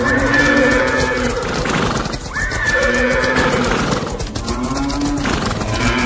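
Horses neighing over rapid clattering hoofbeats, mixed with music. The same neighing pattern comes three times, about every two and a half seconds.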